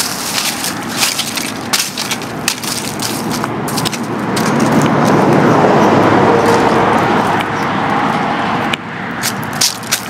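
Footsteps crunching through dry fallen leaves and twigs, with many small crackles and snaps. A few seconds in, a louder, steady rushing noise swells up and then eases off again.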